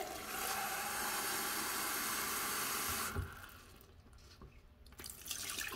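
Water running steadily in a small tiled room for about three seconds, then cut off, followed by a few faint knocks and drips.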